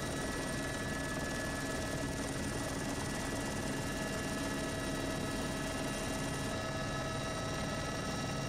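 Steady helicopter noise heard from aboard: an even rotor and engine drone with several constant whining tones over it.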